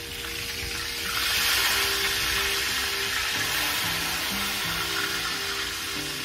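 Chicken frying in hot grease in a cast iron skillet: a steady sizzle that swells about a second in and then holds, over quiet background music.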